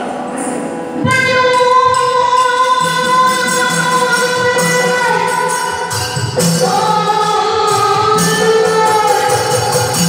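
Yakshagana background music: a singer holds long sung notes that step to new pitches now and then, over regular drum strokes and small hand-cymbal beats.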